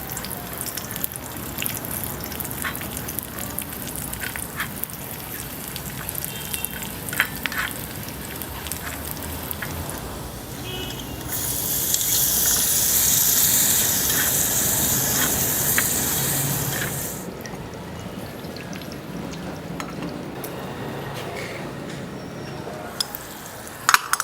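Food cooking in a miniature pan: small crackles and clicks of frying and stirring, with a loud hiss lasting about six seconds near the middle, as if liquid hits the hot pan.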